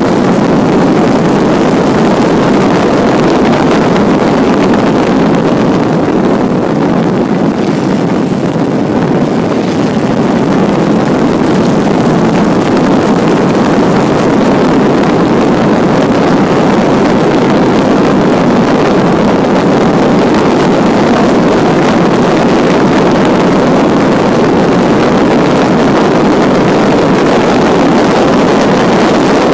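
A 1952 Jaguar XK120's straight-six engine runs hard under load as the car accelerates from about 50 to 75 mph, heard on board as a loud, steady drone.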